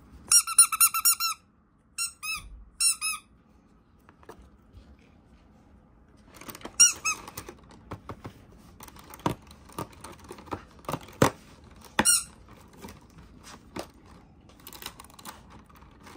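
A squeaky toy being squeezed in quick runs of high squeaks: a burst in the first second, two short ones around two to three seconds, and more about seven and twelve seconds in. Light clicks and knocks from handling come in between.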